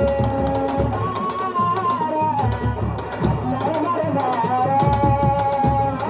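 Music: drums played in a steady rhythm under a melody of long, held notes that slide from one pitch to the next.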